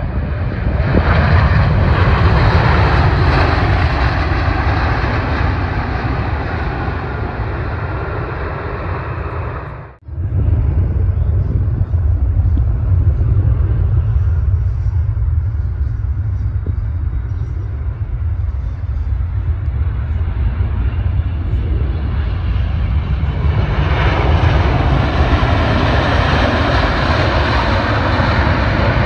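Jet airliners landing: an ANA Boeing 787-8's engines run loud with a deep rumble as it rolls out on the runway, cutting off suddenly about ten seconds in. A second ANA jet then approaches and its engine noise swells over the last few seconds as it rolls out after touchdown, a roar louder than the 787's.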